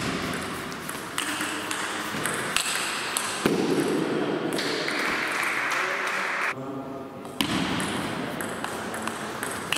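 Table tennis ball clicking back and forth off the rackets and the table in a fast rally, a steady run of sharp ticks.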